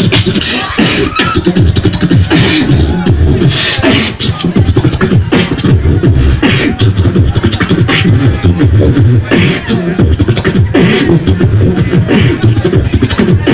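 Beatboxing into a handheld microphone and amplified through a PA system: a fast, continuous beat of deep vocal bass kicks and sharp, snare-like clicks.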